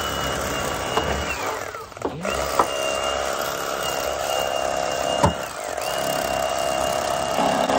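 Electric fillet knife running in three long bursts as a catfish is filleted, a high whine whose pitch falls away at the end of the first two bursts, with a couple of sharp clicks.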